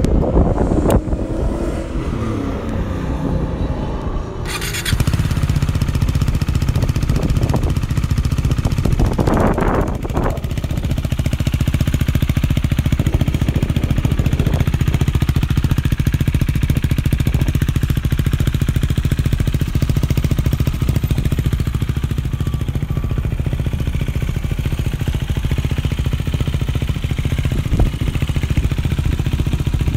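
2019 KTM 390 Duke's single-cylinder engine running, settling about five seconds in into a steady idle, with a brief rise in engine note near a third of the way through.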